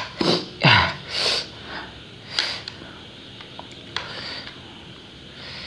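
A man breathing sharply through mouth and nose, with sniffs and hissing breaths, after a mouthful of very spicy instant noodles: about four quick breaths in the first two and a half seconds, then quieter. A few faint clicks follow.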